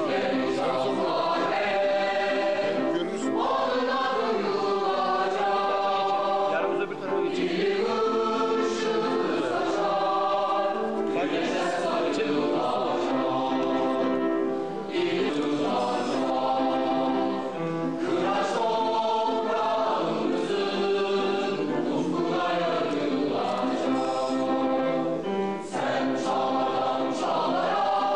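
A choir singing in long held phrases, with brief breaks between phrases.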